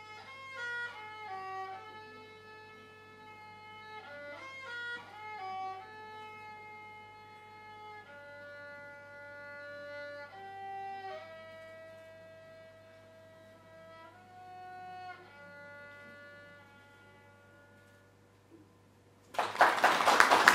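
Solo violin playing a melody: quick runs of notes, then long held notes that die away. Near the end, loud applause breaks out.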